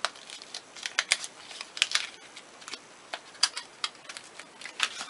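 A soap bar's packaging being opened by hand: irregular sharp crackles and clicks of paper and card being handled.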